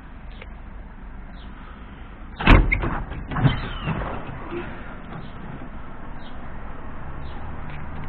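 Rear door of a refrigerated van box body being unlatched and opened: one loud metal clunk from the lock-bar handle about two and a half seconds in, followed by a few smaller clacks over the next second and a half.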